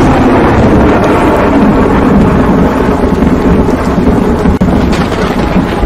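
Thunder sound effect: a loud, continuous rumble of thunder.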